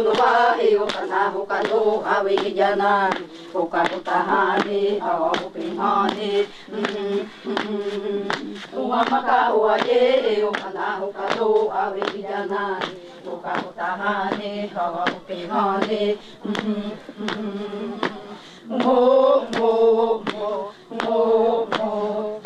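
A group of women singing a chant together in unison, in repeated phrases over a held low note, with sharp clicks marking a beat throughout.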